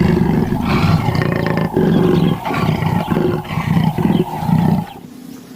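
Recorded big-cat roar sound effect: a run of rough, low roars and growls that stops about five seconds in.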